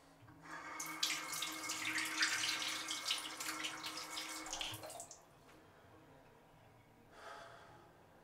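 Water running from a tap into a sink, starting about half a second in and stopping after about four and a half seconds.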